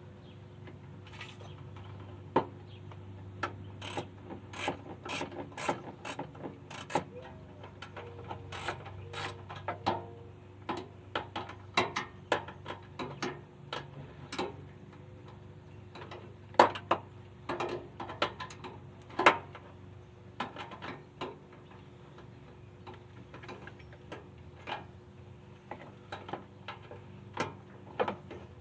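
Hand ratchet wrench clicking in irregular runs, mixed with sharp clinks of metal tools and parts, over a steady low hum.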